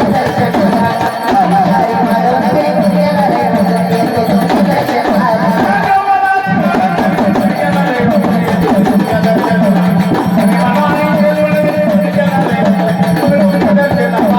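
Marathi folk music: a wavering melodic line over a steady low drone, with tabla-style hand-drum accompaniment.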